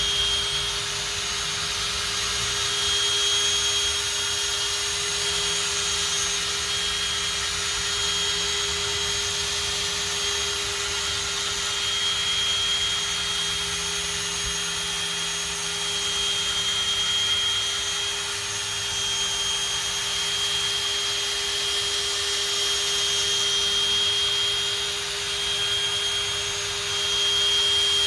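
Handheld electric power tool running steadily with a constant whine, buffing polishing compound into a plastic headlight lens.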